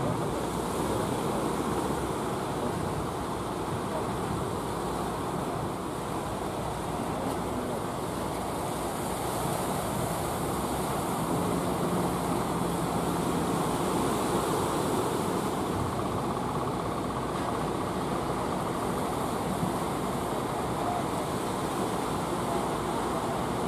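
Ocean surf breaking in a steady wash, with wind on the microphone and the low running of fishing-boat engines underneath.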